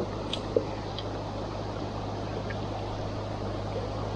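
River water flowing, a steady rush close to the microphone, with two short clicks in the first second.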